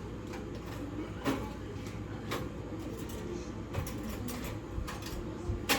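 A few scattered light clicks and knocks, about one a second, as kitchen items and a knife are handled.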